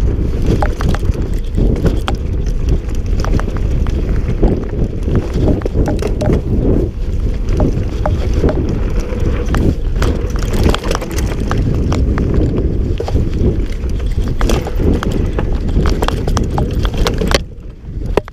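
Mountain bike descending a rough forest dirt trail at speed: heavy wind rumble on the microphone with constant clattering and knocks from the bike over the bumpy ground. The noise drops off sharply near the end.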